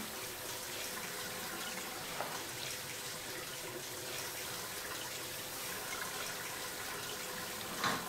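Water running steadily from a bathroom sink tap, with a short knock near the end.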